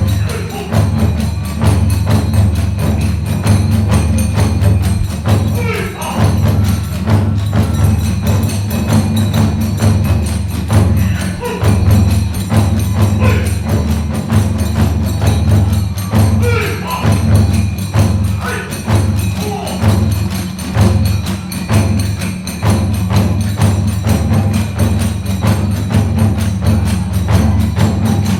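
Kagura hayashi music. Large and small taiko drums beat a dense, steady rhythm, brass tebyoshi hand cymbals clash along with them, and a bamboo fue flute plays sliding phrases over the top.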